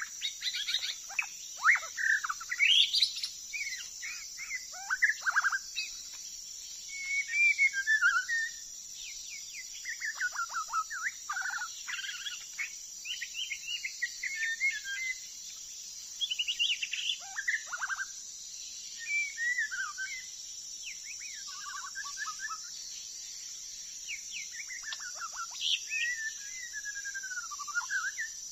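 White-rumped shama singing: short, varied whistled phrases, trills and chattering notes, a new phrase every second or two. A steady high insect drone runs underneath.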